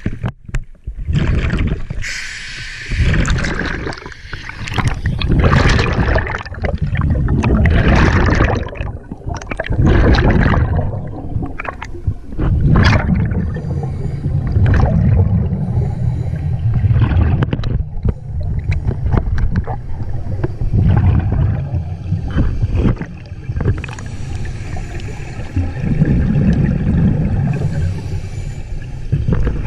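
Scuba breathing heard through an underwater camera: exhaled regulator bubbles gurgle in repeated loud surges every couple of seconds over a low rumble of water. Brighter splashing and bubbling as the camera goes under near the start.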